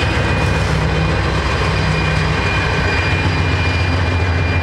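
GE C40-9W diesel locomotive's 16-cylinder engine running with a loud, steady drone and a thin steady whine above it.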